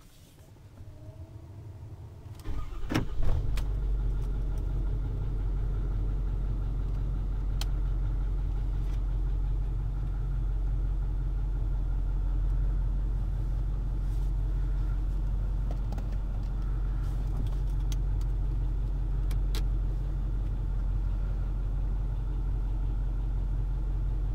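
Truck engine heard from inside the cab: it starts about three seconds in with a sudden loud catch, then runs with a steady low rumble.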